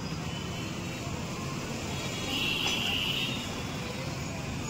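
Busy street traffic: a steady din of motorbike and auto-rickshaw engines, with a vehicle horn sounding for about a second near the middle.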